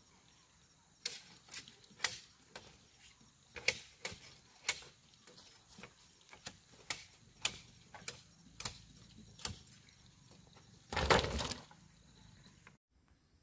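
Machete knocking against bamboo strips as they are trimmed by hand: a series of sharp knocks about half a second apart, then a louder half-second scraping rustle near the end.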